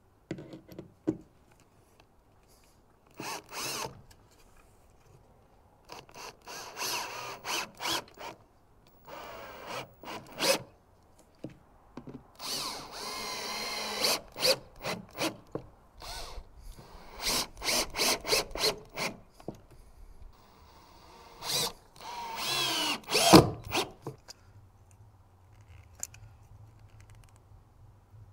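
Cordless drill/driver running in repeated short bursts, driving screws into the wood of a boat-deck repair, with pauses between bursts.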